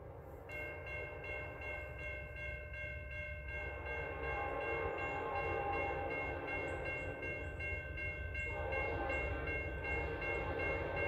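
Grade-crossing warning bell ringing at an even rate as the crossing activates and its gate arm lowers. From about a third of the way in, a train's horn joins it with a long blast, then a second blast after a brief break near the end, growing louder as the train approaches.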